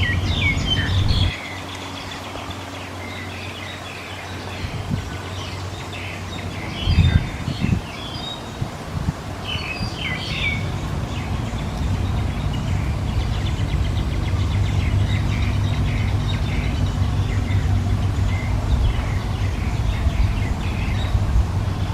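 Small birds chirping and twittering in many short calls, over a low steady rumble that is louder at the start and over the second half. A few thumps about seven seconds in.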